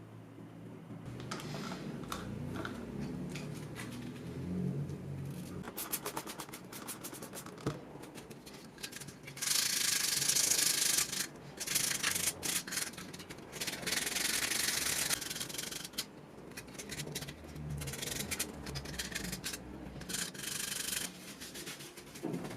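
Hand sanding: abrasive paper rubbed back and forth over a part in runs of quick strokes with short pauses, the loudest run about ten seconds in.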